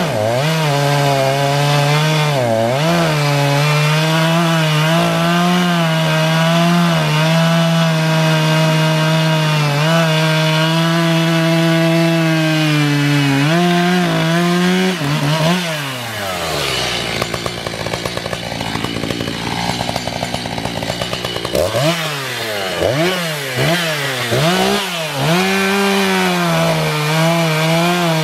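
Echo CS-590 Timber Wolf two-stroke chainsaw running at full throttle while cutting through a log, its pitch sagging a little under load. About halfway through, the revs fall away to a low idle for several seconds. Then it is revved up and down a few times before going back to a steady full-throttle cut near the end.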